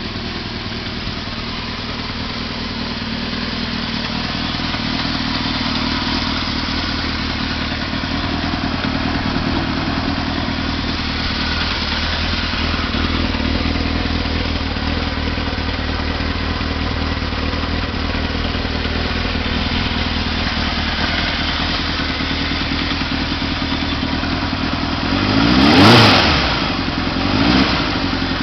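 1978 Kawasaki KZ650's air-cooled inline-four running steadily at idle through its stock exhaust, its carburetors freshly rebuilt and synced. Near the end the throttle is blipped twice, the pitch rising and falling each time, the first blip louder than the second.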